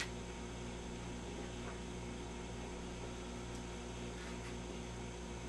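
Steady mains hum with a faint hiss from the powered-up tube television chassis and its test equipment.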